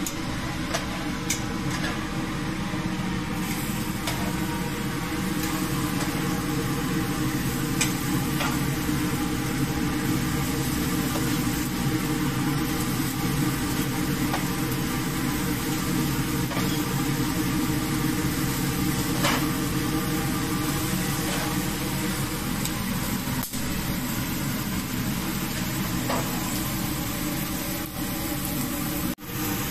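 Marinated beef steaks sizzling on hot grill grates over a steady low hum, with a few light clicks and knocks scattered through.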